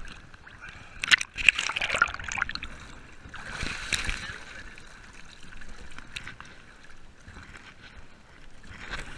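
Water splashing and sloshing right at the microphone as a swimmer moves alongside a boat's hull, with two louder surges, one about a second in and one about four seconds in.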